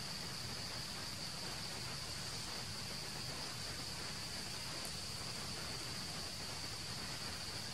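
Steady outdoor ambience: a continuous high-pitched insect drone over an even background hiss, unchanging throughout.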